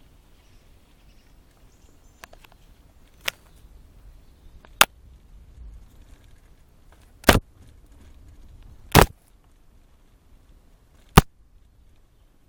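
Branches and leaves striking the camera as it is carried along a forest path: about six sharp, irregular knocks over low handling rustle.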